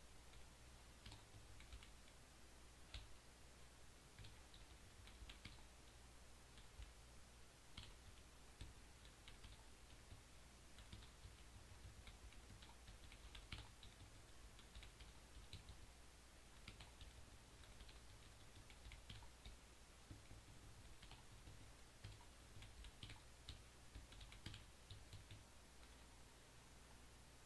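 Faint, irregular clicking of computer keystrokes over a low steady hum.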